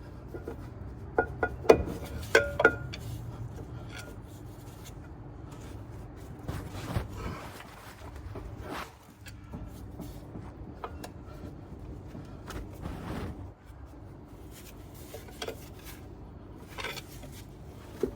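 Metal knocks and clanks as a heavy engine part on the Peterbilt is pried and worked off its dowel pin, a cluster of sharp knocks about one to three seconds in, then scattered scrapes and ticks.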